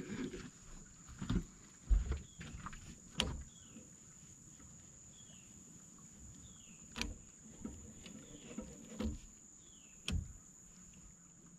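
Scattered knocks and clunks from gear being handled on a small boat's diamond-plate deck as a fishing rod is worked in its rod holder, about six in all. A faint short falling chirp repeats about once a second under them.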